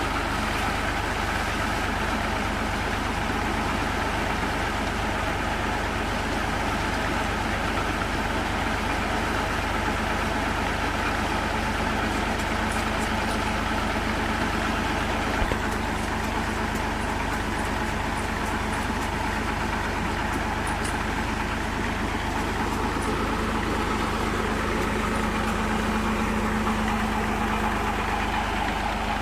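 New Holland tractor engine running steadily at a constant speed, powering a tubewell pump, with a steady hum.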